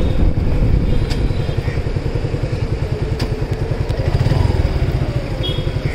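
Motorcycle engine idling with a steady fast low pulse, swelling slightly about four seconds in.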